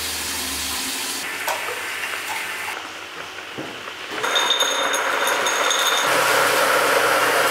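Kitchen sounds: a steady rush of water running at a sink, with a few clinks of crockery. In the second half the noise grows louder and short high beeps repeat for about two seconds.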